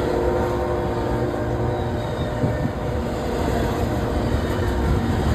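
Freight train cars rolling past with a steady rumble of wheels on the rails. A distant locomotive horn chord fades out in the first second or two.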